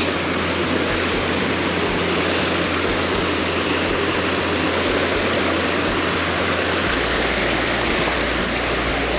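Mountain creek rushing over rocks close by: a loud, steady hiss of running water.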